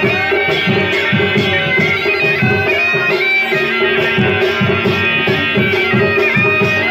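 Kumaoni chholiya band music: a mashakbeen (bagpipe) plays a wavering melody over a steady drone, with drums beating a steady rhythm underneath.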